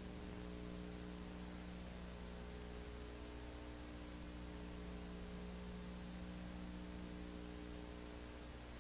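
Faint, steady electrical mains hum with a layer of hiss.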